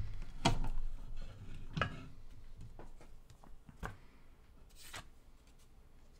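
Hands handling padding and paper on the metal bed of a small printing press: a few soft knocks, the loudest about half a second and two seconds in, then lighter taps and a brief rustle near five seconds as the printed card is peeled off the plate.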